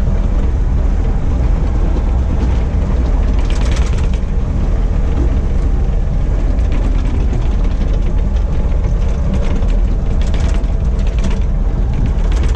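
A rollback tow truck's engine idling with a steady low rumble, with a few brief clatters about four seconds in and again near ten seconds.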